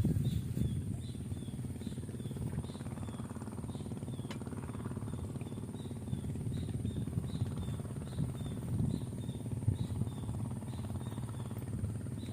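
Outdoor ambience over the water: an uneven low rumble, with short high chirps from a small bird or insect repeating about twice a second and a faint steady high whine behind them.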